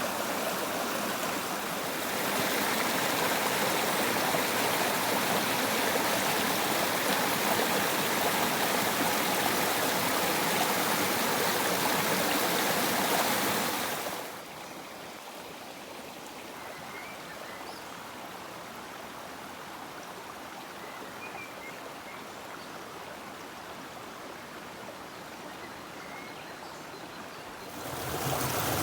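Running water, a steady rushing hiss. About halfway through it drops abruptly to a quieter, softer flow with a few faint high chirps, then comes back loud just before the end.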